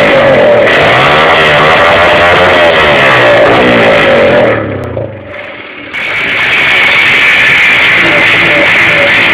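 Honda Fan 125's single-cylinder four-stroke engine revving up and down through an aluminium 'boca 8' sport exhaust, with guitar rock music playing. The sound drops away briefly about halfway, then runs on at a steady note.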